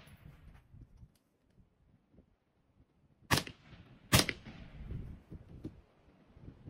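Two rifle shots about a second apart, each a sharp crack with a short fading echo.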